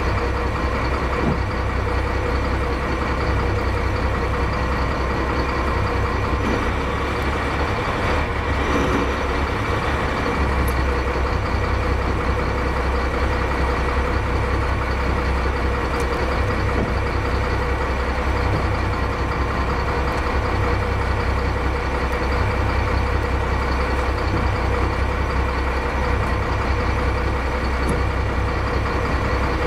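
Crab boat's engine running steadily, an even drone with no changes in speed.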